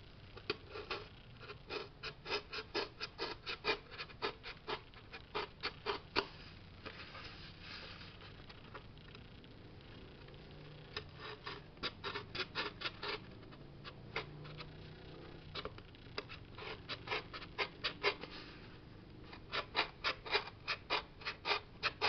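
An X-Acto craft knife blade cutting into a cardboard lampshade in short strokes: quick scratchy ticks at about four a second, in bursts with short pauses between them.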